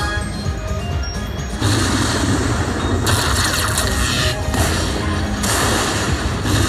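Aristocrat Lightning Link slot machine playing its electronic game music with a run of lightning-strike crash and boom sound effects, starting about one and a half seconds in, as its free-spins bonus ends.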